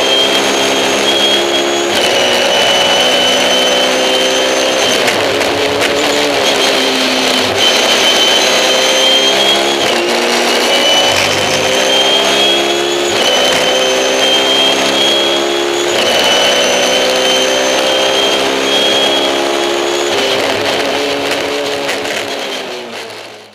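BMW 320si E90 race car's four-cylinder engine heard from inside the cockpit on a flying lap, revving up through the gears: the pitch climbs and then drops sharply at each gear change, several times over, with a high whine rising and falling along with it. The sound fades out near the end.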